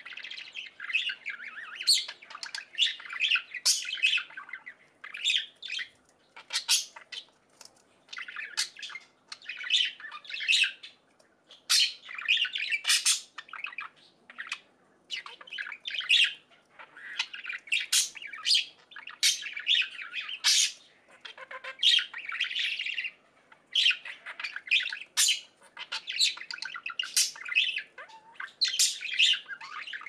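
Budgerigars chirping and chattering: a continuous run of short high chirps mixed with sharper squawks, with only brief pauses.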